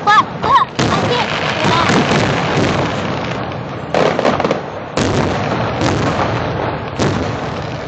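Aerial fireworks bursting, with a string of sharp bangs (near the start, about a second in, and again at about four, five and seven seconds) over continuous crackling and rumble. Crowd voices mix in.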